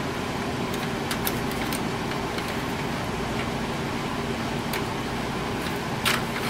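Steady low hum with a few light plastic clicks from a printer paper cassette as its guides are adjusted.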